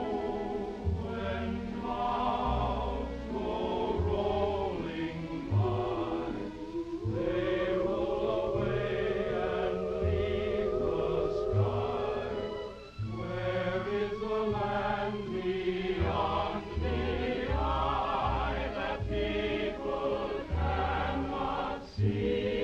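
A chorus of voices singing with vibrato over an orchestral accompaniment with a bass line.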